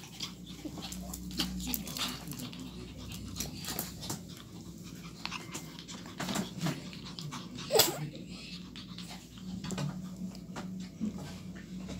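Shih Tzu puppies playing: short yips and whimpers among small scratching and clicking sounds, with one sharp yelp about eight seconds in, the loudest sound.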